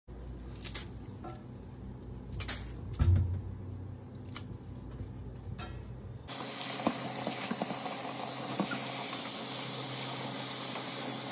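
Kitchen faucet turned on about six seconds in, running steadily into a stainless steel colander pot as turnip greens are rinsed by hand. Before it, a few faint clicks and a low knock.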